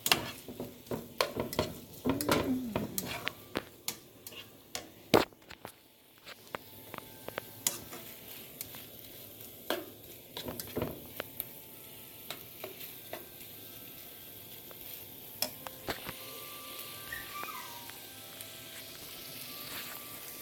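Shrimp, garlic and onion sizzling in a nonstick frying pan while a spatula stirs them. Frequent taps and scrapes of the spatula against the pan fill the first six seconds, then the sizzle runs on steadily with only occasional taps.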